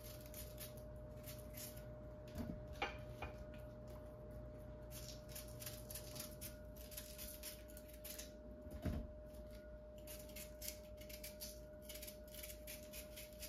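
A knife working on a yellow yam: short, quiet scraping strokes as the skin is pared off, with a few light knocks on the board.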